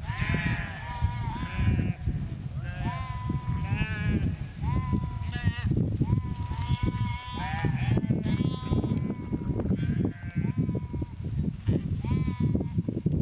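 A large flock of sheep bleating: many overlapping, wavering calls one after another, over a steady low background noise.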